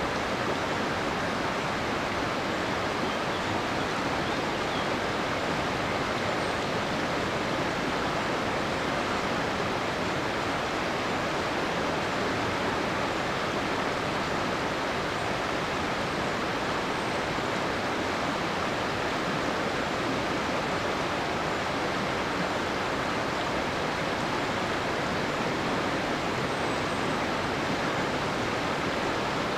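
Rocky river flowing over and around boulders: a steady, even rush of water.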